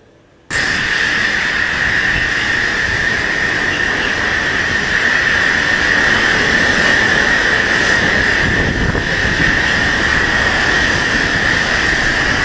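Typhoon wind and driving rain: a loud, steady roar with a high whistle running through it. It starts abruptly about half a second in.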